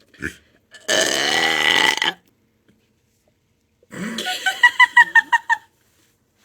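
A long, low belch lasting about a second, starting about a second in. Near the end comes a second sound that breaks into a rapid run of short, high-pitched pulses.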